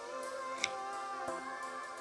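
Background music with steady held notes, and two short sharp clicks: one about two-thirds of a second in and a fainter one a little after a second.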